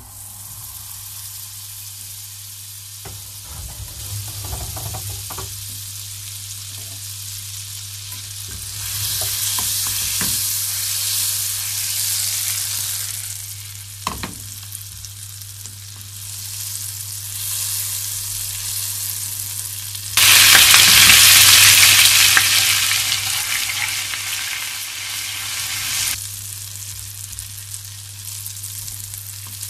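Butter sizzling in a hot nonstick frying pan, the hiss growing as it melts and foams, with a few light knocks of a wooden spoon. About twenty seconds in, the sizzle turns much louder for some six seconds, as when beaten egg hits the hot butter, then settles to a steady frying sizzle as the egg is stirred.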